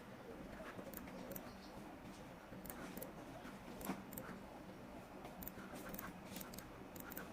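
Faint, irregular light clicks and ticks, several a second at uneven times, over a low steady hum.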